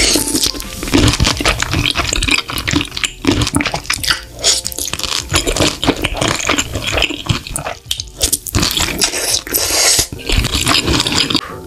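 Wet slurping and chewing of cream-sauce pasta noodles, with sticky smacking mouth sounds coming in quick, irregular succession.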